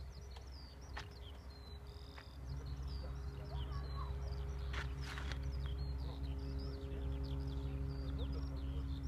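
Small birds chirping and twittering continuously. Under them runs a low, steady engine drone that gets louder about two and a half seconds in.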